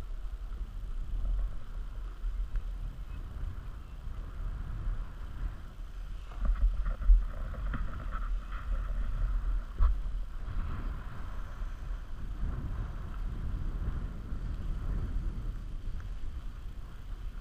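Wind buffeting an action camera's microphone, mixed with the hiss of sliding over snow as a button drag lift tows the rider uphill. Two sharp knocks about seven and ten seconds in.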